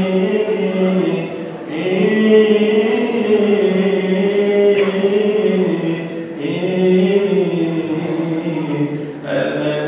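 Coptic Orthodox liturgical chant: a man's voice sings long, held notes that move slowly up and down in a melismatic line.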